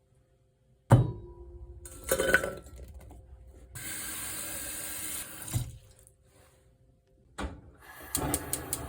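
Kitchen tap running for about two seconds into a sink, between a sharp knock about a second in, a clatter, and a run of light clinks of dishes near the end.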